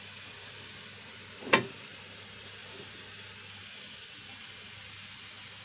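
Faint, steady sizzle of spiced minced meat (kefta) frying in a pan, with one sharp click about one and a half seconds in.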